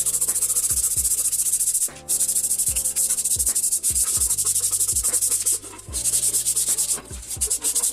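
Fast, steady abrasive rubbing, like sanding or brushing metal, over a music track with deep bass notes and regular kick-drum thumps.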